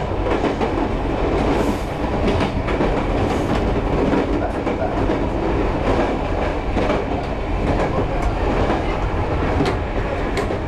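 Train running along the track, heard from inside the front of the train: a steady rumble and rattle with scattered clicks from the wheels on the rails.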